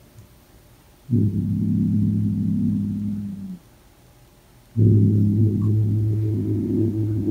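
Adult grey cat giving a deep, rumbling growl, twice: the first starts about a second in and lasts over two seconds, the second begins after a short pause and runs on. It is a warning growl at an unfamiliar kitten.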